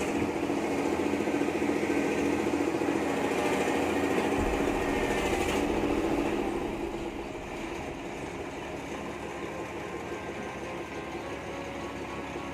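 Hitachi UH07 hydraulic excavator's diesel engine running with a steady hum, then quieting to a lower level a little past halfway.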